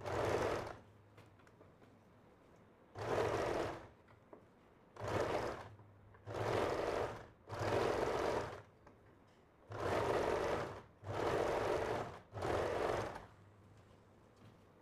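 Electric sewing machine (an Allure) stitching a bias strip onto a blouse neckline in short runs of about a second each, about eight times, stopping briefly between runs as the fabric is guided.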